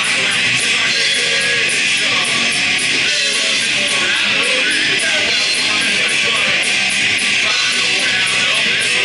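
Live rock band playing loud, guitar-driven music with drums, cymbals ringing in a steady beat over the dense wash of sound.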